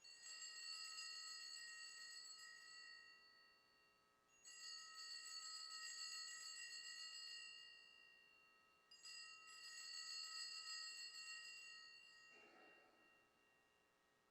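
Altar bells rung three times, each ring fading out over a few seconds, marking the elevation of the chalice just after its consecration.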